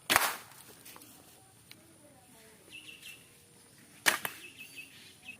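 Homemade bamboo toy gun firing twice, two sharp pops about four seconds apart, each dying away quickly.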